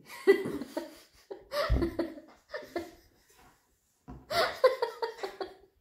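A woman laughing heartily in several short bursts, breaking off for about a second near the middle before a longer run of laughter.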